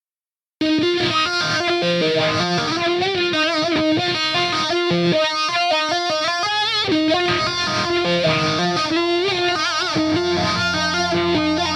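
Background music: a distorted electric guitar playing a melodic lead line with wavering vibrato notes, starting about half a second in.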